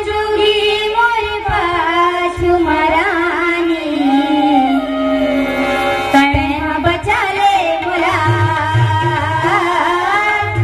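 A voice sings a slow melody with long held notes that slide in pitch, over hand-drum accompaniment. The drum strokes grow stronger about eight seconds in.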